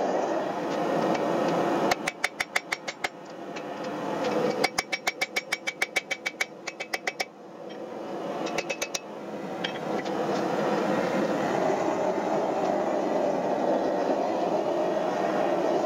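Hand hammer striking a hot axe head on the anvil in quick runs of light blows, about seven a second, each with a ringing note: straightening adjustments to the blade. There is a short run about two seconds in, a longer one a little before the middle and a few last taps near nine seconds, with the forge's steady roar underneath.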